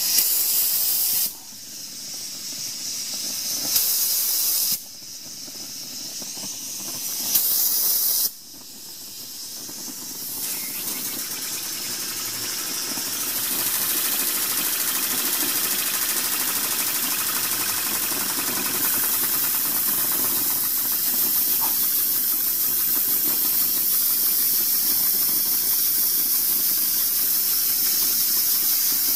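Steam hissing out of a homemade boiler's spring-loaded pressure relief valve, a check valve from an old air conditioner, as the pressure builds with the steam line closed. It vents in three surges that each cut off sharply as the valve reseats, then settles into a steady hiss of escaping steam after about ten seconds.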